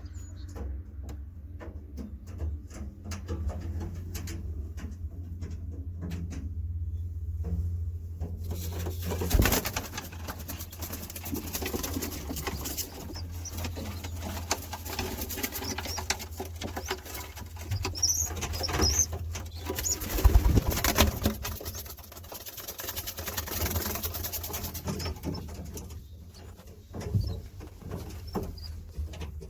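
Young roller pigeons cooing, over a steady low hum, with a rustling hiss that comes in about a third of the way through.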